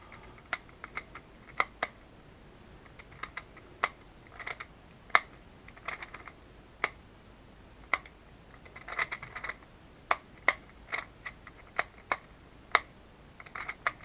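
Custom magnetic Rubik's Clock being solved: its dials and pins clicking as they are turned and pushed. The clicks are sharp and irregular, about two a second, with short runs of quicker clicking.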